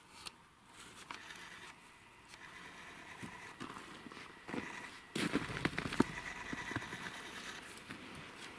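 Footsteps on a snowy forest floor, with twigs and brush crackling underfoot. The steps are faint at first and get louder and busier about five seconds in.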